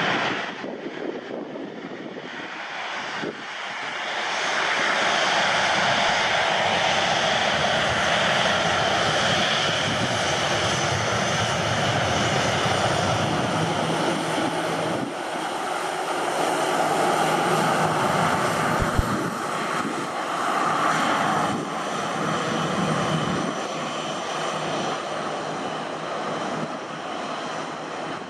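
Jet airliner engines running, a steady loud rushing noise that swells about four seconds in and holds.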